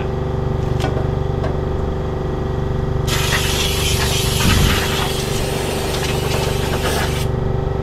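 Air compressor running with a steady drone. For about four seconds in the middle a loud hiss starts suddenly and cuts off just as suddenly.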